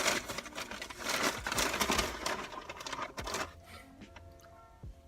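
Close, crackly crinkling and crunching noise that stops about three and a half seconds in, followed by faint background music.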